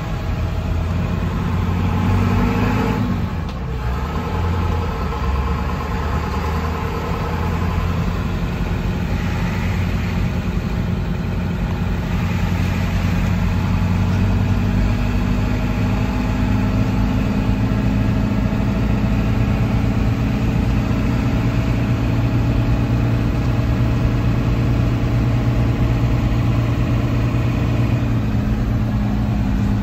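Engine and road noise of a vehicle, heard from inside the cabin while driving slowly. The engine note rises and then drops about three seconds in, climbs slowly again, and eases off near the end.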